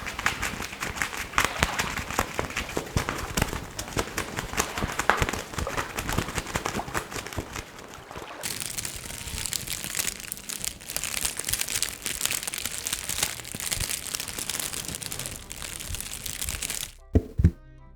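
Dense, rapid crinkling and crackling of a prop being handled, turning brighter and hissier about halfway through. A few sharp thumps come near the end.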